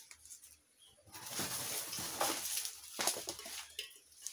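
Leaves and stems of a freshly cut vine rustling and scraping as it is pulled and gathered up. The sound comes in uneven bursts, starting about a second in and easing off near the end.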